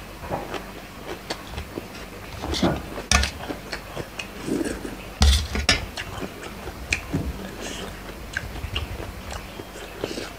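Close-up eating sounds: irregular crisp crunches and chewing of raw lettuce and the lotus-stem salad. A couple of louder crunches with low thuds come about 3 and 5 seconds in.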